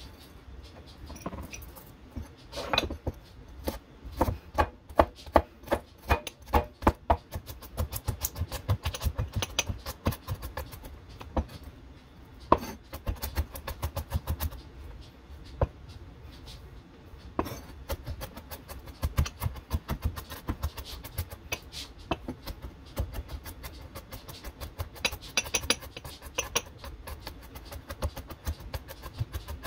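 Knife chopping on a cutting board: runs of quick, sharp strokes, several a second, broken by short pauses.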